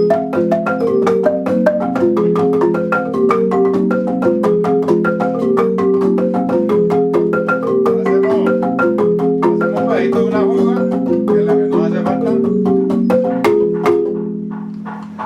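Marimba de chonta playing a fast tune of rapid repeated struck notes, which rings off and fades near the end.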